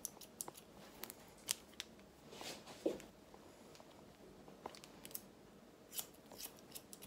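Hairdressing scissors snipping through short hair held between the fingers: a string of quiet, sharp snips at an irregular pace.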